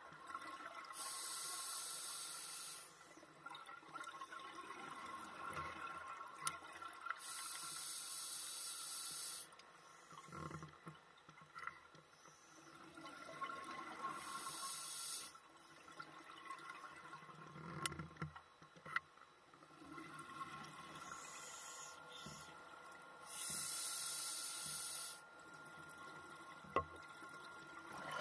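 Underwater, a scuba diver's exhaled bubbles rush from the regulator in bursts of about two seconds, four or five times, several seconds apart with each breath. A faint steady tone and a few soft low thumps lie underneath.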